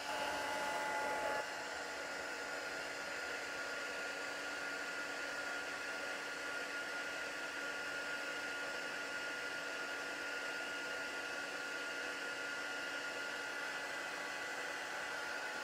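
Embossing heat gun blowing steadily: a constant hiss of hot air with a high motor whine, as it melts embossing powder on vellum.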